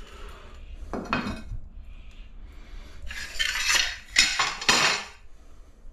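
Notched trowel scraping tile adhesive across the wall in separate strokes: one about a second in, then a quick run of four in the second half.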